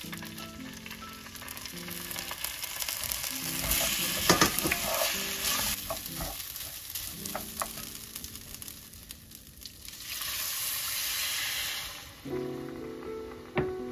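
Soaked rice sizzling in sesame oil in a hot Staub enamelled cast-iron pot as it is stirred with a wooden spoon, with a few sharp knocks of the spoon against the pot. Near the end anchovy broth is poured into the pot, a steady rush for about two seconds. Soft piano music plays underneath.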